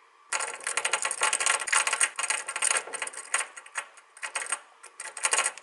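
Fast, irregular metallic clicking and rattling that starts about a third of a second in. It comes from a simple electric motor without a commutator: the cable plugs are tapped together and apart in rhythm to switch the coil's current, and the small taped-on permanent magnet turns on its mount.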